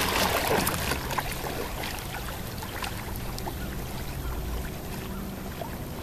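Water trickling and dripping around a kayak and its paddle as it moves across a pond, with small splashes, louder in the first second and then easing. A low rumble of wind on the microphone runs underneath.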